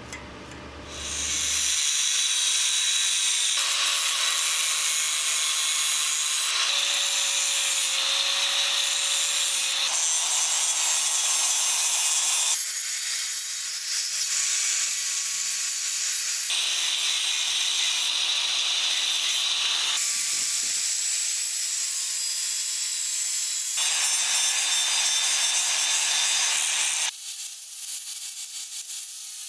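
Angle grinder with a thin cut-off disc cutting into the steel jaw of old pincers: a loud, steady, high-pitched grinding that starts about a second in. It changes abruptly every few seconds, and near the end it drops to a lighter, quieter grind.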